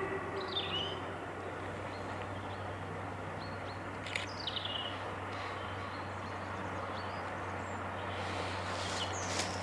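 Steam locomotive approaching in the distance, a low steady rumble, with a bird's short descending chirps about half a second in and again around four seconds in.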